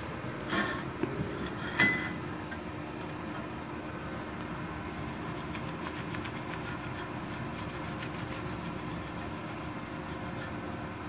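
Steady hum of a switched-on Multipro MIG-MMA/TIG 160A-SC inverter welding machine, its cooling fan running. Two knocks come about half a second and two seconds in, the second sharp and loud. After that, light rubbing and clicking of a thin galvanized steel channel being handled.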